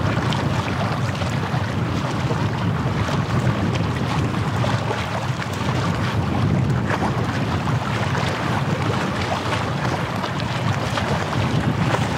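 Steady wind rumbling on the microphone at the seashore, with small waves washing in underneath; the level stays even throughout.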